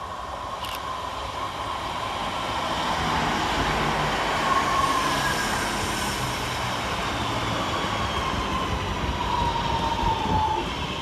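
Class 323 electric multiple unit arriving, its running noise building over the first few seconds, with a whine that slowly falls in pitch as the train slows.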